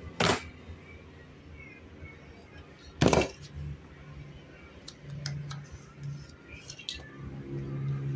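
Steel ruler and cutter knife knocking on a cutting mat and cardstock as the sheet is lined up for a cut: two sharp knocks about three seconds apart, then lighter taps and clicks.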